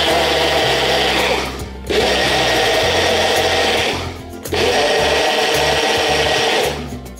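Personal bullet-style blender whipping a milky liquid into foam, run in three pulses of about two seconds each with short pauses between.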